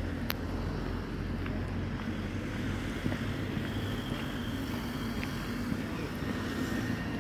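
Wind buffeting the microphone: a steady low rumble, with a sharp click near the start.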